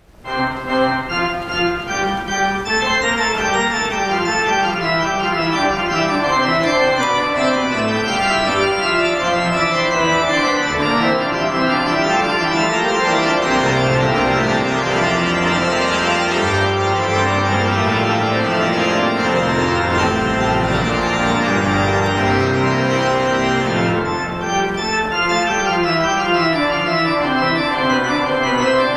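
Church pipe organ playing sustained chords, with deep bass notes coming in about halfway through and dropping out near the end.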